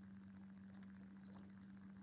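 Near silence: a faint steady low hum with a few faint ticks.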